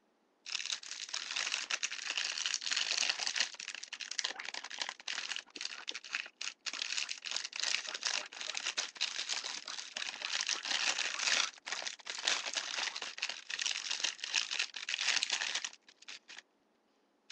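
Thin plastic carrier bag crinkling and crackling close to the microphone as fingers pull and tear at it to make an eye hole. The crackle runs almost without pause, then thins to a few last crackles near the end.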